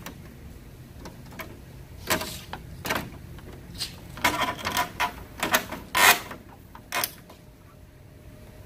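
Irregular clicks and knocks of plastic and metal car parts being handled and fitted back on during reassembly of the car's front end. The loudest knock comes a little after six seconds in.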